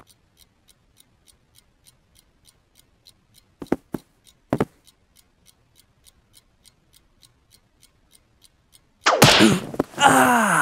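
A clock ticking steadily, about three ticks a second, with a few soft clicks around the middle. Near the end a loud cry with falling pitch sounds over it.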